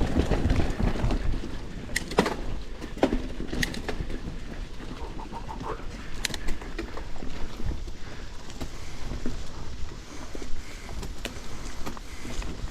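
Mountain bike ridden over a rough dirt trail: steady rumble of tyres and wind, with the frame and drivetrain rattling and knocking sharply over bumps several times.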